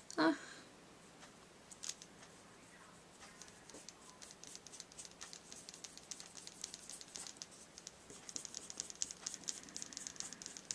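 Clear glitter brush pen scratching in many quick, short strokes as it is worked across a paper bow, growing busier in the second half.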